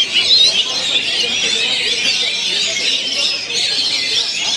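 Dense chorus of many oriental magpie-robins singing at once: overlapping whistles, chirps and chattering with no pause, the sound of a songbird contest, over a low murmur of voices.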